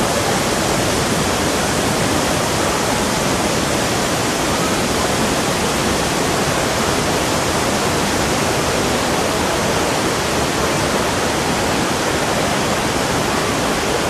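Waterfall running, a steady even rush of falling water.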